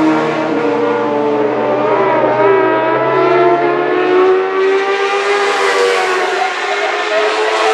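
Several racing sidecar outfits' engines running hard at high revs, a few engines at once with their pitches rising and falling as the outfits go through the corners, growing louder and brighter in the second half.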